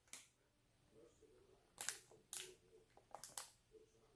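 Short, faint crinkles of a small plastic candy wrapper handled in the fingers: about five separate clicks spread out, with quiet between them.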